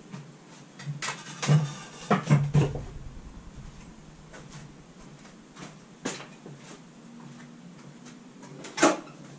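Scattered knocks and clunks from a workshop as someone walks off and searches the shelves. There is a cluster in the first three seconds, then a single knock about six seconds in and the loudest one near the end.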